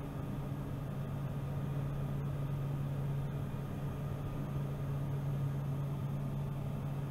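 Pilatus PC-12NG's single PT6A-67P turboprop engine and propeller droning steadily in the climb just after takeoff, heard in the cockpit as an even low hum over a steady hiss.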